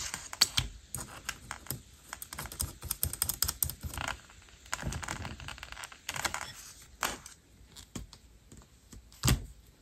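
Irregular small clicks and scrapes of HQ Racing R38 plastic propellers being fitted onto brushless motor shafts and their prop nuts run on with a nut driver, with one sharper click near the end.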